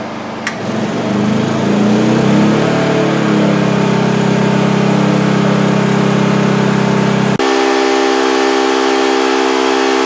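A switch clicks about half a second in. Then the Honda EU2000i inverter generator's single-cylinder engine revs up out of eco mode as a roughly 1,500-watt space-heater load comes on: it rises in pitch over a couple of seconds and settles into a steady run under load. A little past seven seconds the sound jumps abruptly higher in pitch because the footage is played at double speed, not because the engine speeds up.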